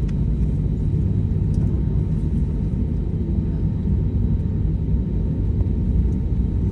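Airbus A320neo jet engines giving a steady low rumble that holds an even level throughout.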